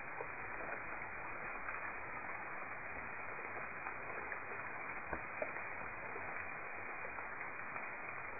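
Steady hiss of background noise, with a few faint clicks, the clearest about five seconds in.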